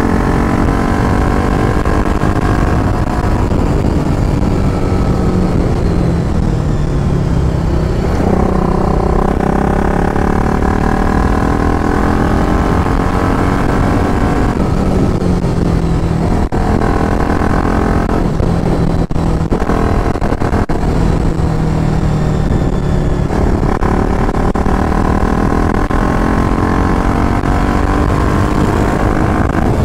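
BMW G 310 RR single-cylinder motorcycle engine under way, its pitch climbing and then dropping back several times as the rider accelerates and shifts gears, with wind noise throughout.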